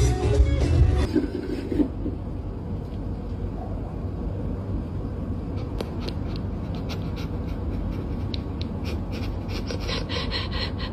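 A second of background music, then a steady rubbing, scratching noise with scattered light clicks and taps, more of them in the second half.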